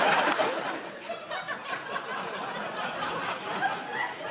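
Studio audience laughing, loud at first and dying down about a second in to scattered chuckles and murmurs.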